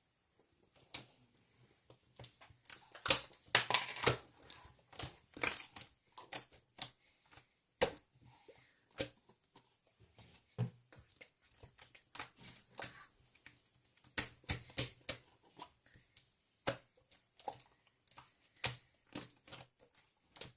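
A long run of irregular, sharp clicks and taps made close to the microphone, thickest around three to six seconds in and again around fourteen to fifteen seconds.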